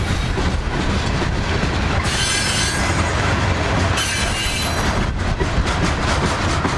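Coal hopper cars of a long freight train rolling slowly past: a steady low rumble of steel wheels on rail, with a high-pitched wheel squeal from about two to four seconds in and a run of clicks as wheels pass over rail joints near the end.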